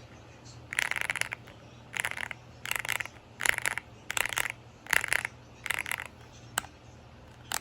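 Keys of a GK68 mechanical keyboard with Cherry-profile keycaps being pressed in seven quick flurries of clicking, about one flurry every 0.7 seconds, followed by two single clicks near the end.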